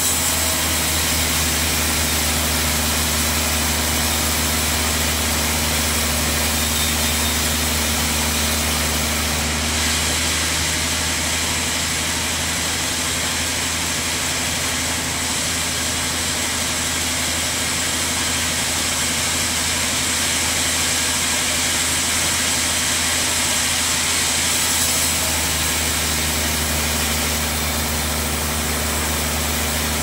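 Band sawmill running with its blade cutting lengthwise through a large log: a steady low motor hum under an even hiss of the blade in the wood. The hum shifts slightly about ten seconds in and again around twenty-five seconds in.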